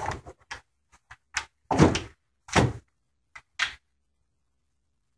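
Window sash lock being handled and set against the vinyl sash's lock rail: a series of about eight short knocks and clicks, two louder thunks in the middle.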